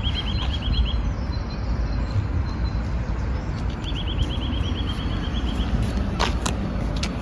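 Steady low rumble of road traffic outdoors, with a small bird singing a rapid high trill twice, the second about four seconds in.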